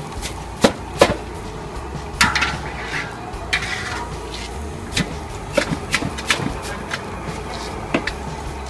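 Wire-mesh strainer with a bamboo handle stirring noodles in a large stainless-steel basin: sharp, irregular clinks and knocks of the strainer against the metal bowl, with a rustle of noodle strands for a second or so in the middle.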